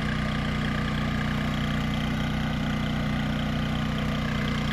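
Cummins Onan QG2500i LP inverter RV generator running steadily, heard from about 50 feet away, the exhaust tone the main part of the sound with a little sputter to it.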